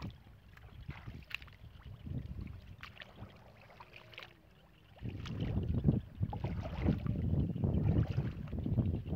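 Wind buffeting the microphone in uneven gusts, much stronger from about five seconds in, with scattered light crackles.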